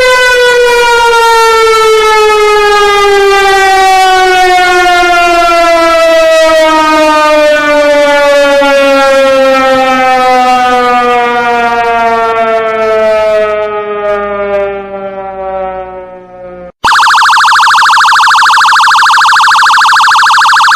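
A siren winding down, its pitch falling slowly and steadily as it fades out over about sixteen seconds. It stops abruptly, and a different alarm tone starts at once, steady and rapidly pulsing.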